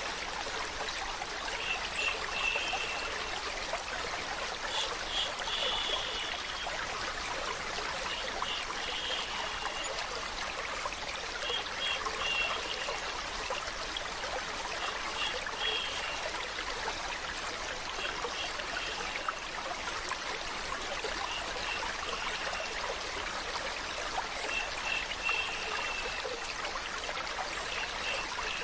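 Water running steadily, like a flowing stream, with short high chirps recurring every couple of seconds.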